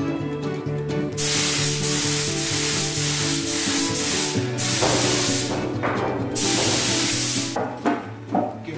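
Compressed-air paint spray gun hissing in three bursts, the first about three seconds long, the second brief, the third just over a second, as paint is sprayed onto the panels. Background music with held notes plays underneath.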